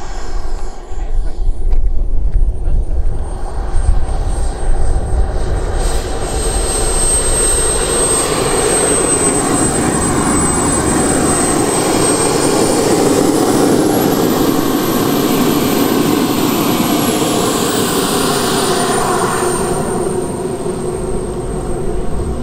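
Turbine engine of a large RC jet model running with a rushing roar and a high whine. The whine rises in pitch about halfway through as the turbine spools up, holds for a few seconds, then falls back. Heavy low rumble in the first few seconds.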